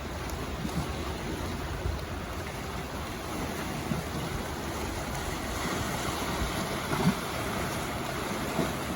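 Seawater sloshing and lapping steadily, with a couple of sharper sounds in the second half.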